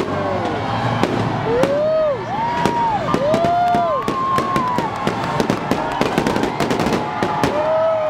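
Fireworks display: a dense, irregular run of sharp bangs and crackles, with several short pitched sounds rising and falling over them.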